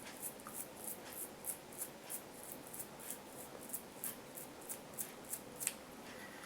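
Toothbrush bristles scrubbing the mesh of an AirPod's sound outlet with warm water, in short, quick, scratchy back-and-forth strokes about three a second, stopping about a second before the end.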